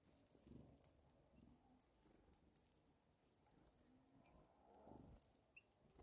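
Very faint: a small bird's thin, high call repeated about twice a second, with scattered soft clicks and a few low muffled flutters as small birds come and go at a winter seed feeder.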